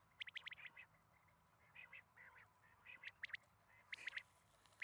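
Quail calling: quick clusters of three or four short, sharp notes, repeated about once a second.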